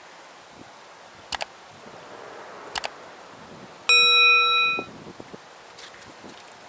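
Two pairs of faint clicks, then a single bright metallic ding, like a struck chime, that starts suddenly about four seconds in and rings away within about a second.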